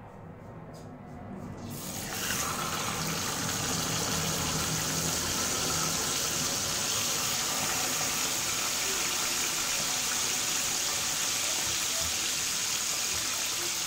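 Butterflied mackerel frying in hot oil in a non-stick pan: after a few faint pops from the oil, a loud sizzle starts suddenly about two seconds in as the fish goes into the pan, then holds steady.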